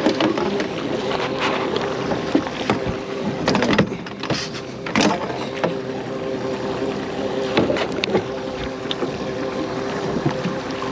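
Boat motor running steadily, with scattered sharp knocks and clatter over it.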